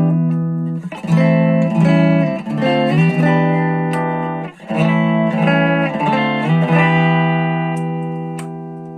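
SX Vintage series Telecaster-style electric guitar played through a Marshall MG10 practice amp with a clean tone, strumming a run of chords that change every half second to a second. The last chord is left to ring and fades out.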